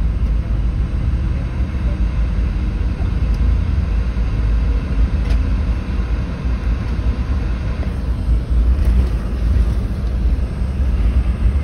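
Cabin noise of a jet airliner taxiing after landing, heard from inside the cabin: a steady low rumble with a noisy hiss above it.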